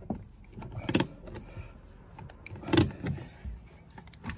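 Hand pop-rivet gun being squeezed to set a rivet into the car door's speaker mount, with two sharp snaps about two seconds apart, the second the louder.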